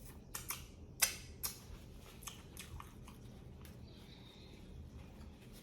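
Close-miked mouth sounds of chewing a toasted grinder sandwich. A few crisp crunches and clicks come in the first three seconds, then quieter chewing.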